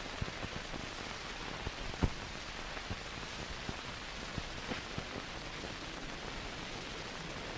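Steady hiss with scattered clicks and pops, the loudest about two seconds in: background noise and crackle of an old film soundtrack.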